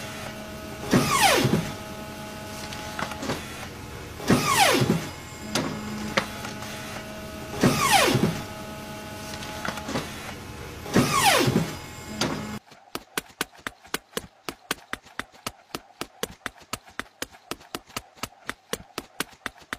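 Sound effects for a looping 3D animation. Four falling sweeps come about every three and a half seconds over a steady low hum. After a sudden cut, a spinning propeller animation is matched by sharp, even clicking at about four clicks a second.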